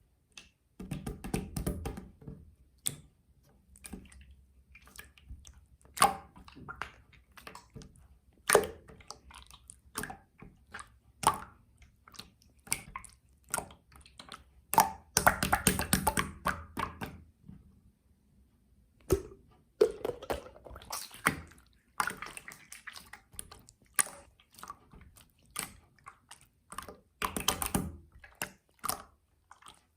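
Clear slime being squished, pressed and stretched by hand, giving a string of sticky, wet clicks and pops with a few longer squelching stretches.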